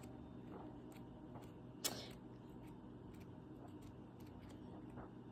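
Paper pages of a hardcover book being handled: faint light clicks and one soft page rustle about two seconds in, over a low room hum.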